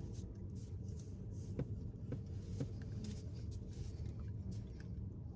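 Steady low hum inside a car cabin, with three light clicks about half a second apart from chewing food.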